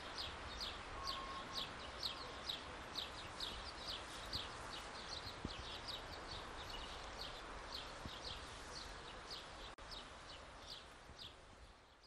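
A bird calling over and over in short, falling chirps, two or three a second, over a steady outdoor background; the sound fades near the end.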